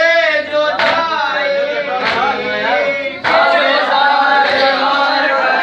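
A group of men chanting a nauha (Shia mourning lament) together, with loud hand slaps on the chest (matam) keeping an even beat about once every second and a quarter.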